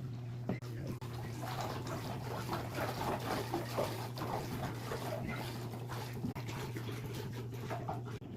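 Aquarium glass being cleaned: irregular rubbing, squeaking and water splashing, over a steady low hum of the tank's pump equipment.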